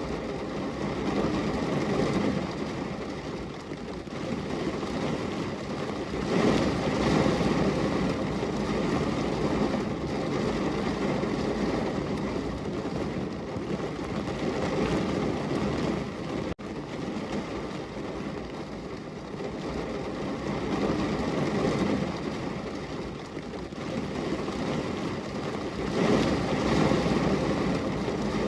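Heavy rain pouring down on a window pane, a steady rushing patter that swells louder at times in gusts.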